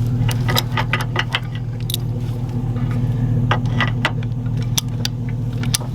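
A vehicle engine idling steadily, with repeated light metallic clicks and clinks over it.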